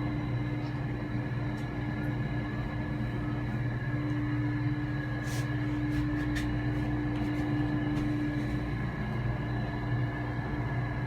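Steady hum of the air conditioning inside an enclosed Ferris wheel gondola: a constant low drone with a few held tones over it, and a couple of faint clicks near the middle.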